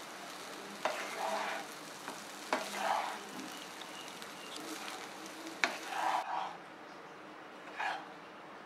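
Wooden spatula stirring and turning cooked rice through a hot non-stick pan with a light sizzle underneath. It makes repeated swishing scrapes and a few sharp taps against the pan, about a second in, at two and a half seconds and near the middle.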